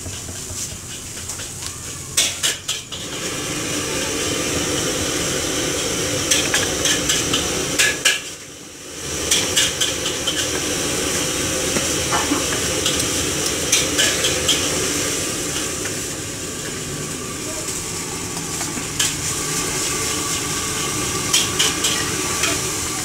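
Knife blade chopping through a martabak onto a wooden cutting board: clusters of sharp knocks, several times over, above a steady hiss.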